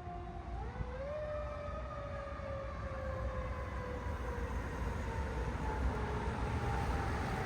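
Federal Q2B mechanical siren on a fire rescue truck winding down, briefly revved up again about half a second in, then coasting down slowly in pitch. The truck's engine and road rumble run underneath and get louder near the end.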